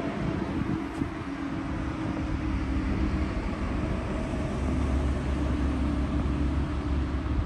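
Steady low outdoor rumble with a faint hum running through it.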